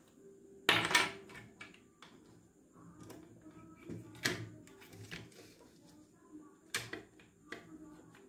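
Clicks and knocks of hard plastic parts being handled: the opened blood pressure monitor's LCD display module and casing knocking together as they are fitted. The loudest knock comes about a second in, with others about four and seven seconds in.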